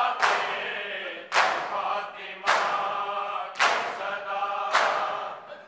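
Matam: a crowd of men striking their bare chests in unison, one sharp slap about every second, five in all. Between the slaps, male voices chant a noha lament together.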